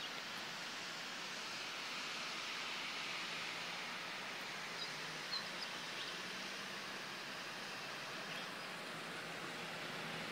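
Steady hiss of a car's tyres running on a wet road, with a few faint high chirps about halfway through.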